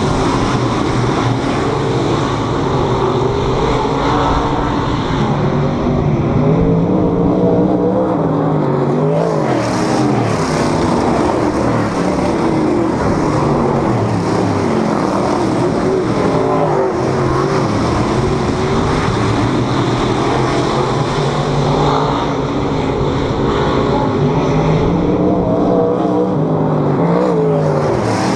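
Several dirt modified race cars' V8 engines running hard on a dirt oval, overlapping engine notes whose pitch swoops up and down again and again as cars pass close and pull away.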